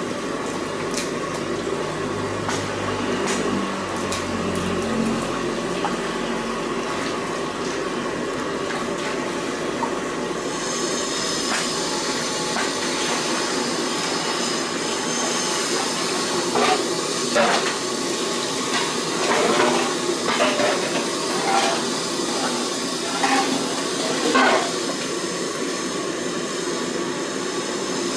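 A steady rush of water-like noise with kitchenware clattering in short bursts from about halfway through.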